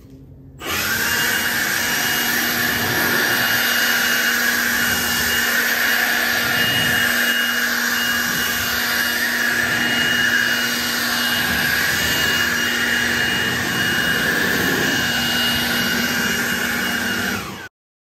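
Milwaukee M18 FUEL cordless leaf blower running, a steady loud rush of air with a high motor whine, blasting water off a wet car hood. It comes on just under a second in and cuts off suddenly near the end.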